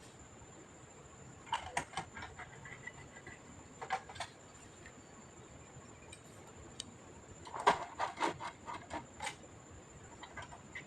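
Clicks and light taps of small parts being handled while an all-in-one PC is taken apart, coming in a few short clusters with the busiest run near the end, over a faint steady high-pitched whine.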